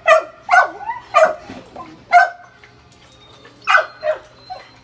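A dog barking, about six short sharp barks with a pause of about a second in the middle.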